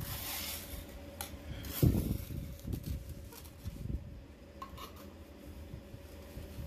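Mason's trowel scraping and scooping wet cement mortar in a metal pan, with a loud knock about two seconds in and several smaller scrapes and knocks after it. A faint steady hum runs underneath.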